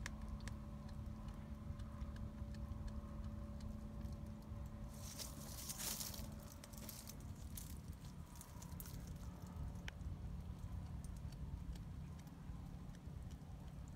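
A cat chewing and crunching through a rat's bones: a run of small, irregular crunches and clicks. A brief hissing rustle comes about five seconds in, over a steady low hum.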